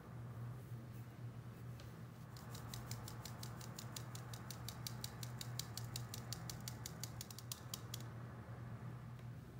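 Stainless steel mesh sieve tapped by hand to sift cornstarch: a rapid, even run of light ticks, about seven a second, starting about two seconds in and stopping near the end. A steady low hum sits underneath.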